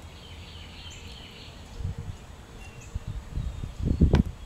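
Quiet outdoor ambience with faint distant birds chirping. Low, irregular rumbling buffets, like wind on the microphone, come in during the second half and grow stronger near the end.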